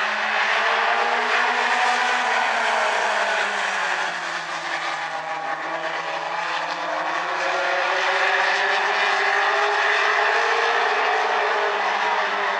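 A pack of mini stock race cars running hard around the oval, their engines in full chorus. The engine pitch climbs, drops about four seconds in as the cars back off for a turn, then climbs again.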